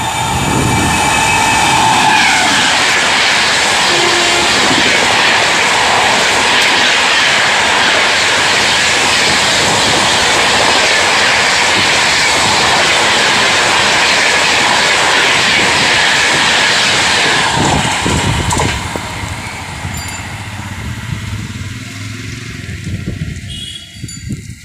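Howrah–New Delhi Rajdhani Express, a WAP7 electric locomotive with LHB coaches, passing at full speed, about 132 km/h. The locomotive's horn sounds as it approaches and stops about two seconds in. Then comes a loud, even rush of wheels on rail as the coaches go by. It drops suddenly after about seventeen seconds into a fading rumble as the train recedes.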